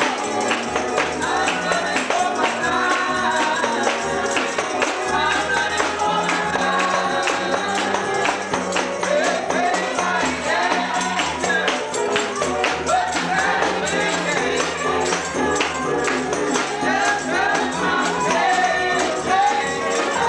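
Congregation singing a spirited gospel song with tambourines shaken and struck in a fast, steady rhythm, over low bass notes.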